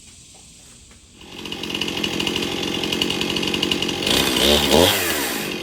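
Stihl MS271 FarmBoss two-stroke chainsaw running with its new 18-inch .063-gauge bar and chain. It comes in loud about a second in and revs up and back down about four seconds in.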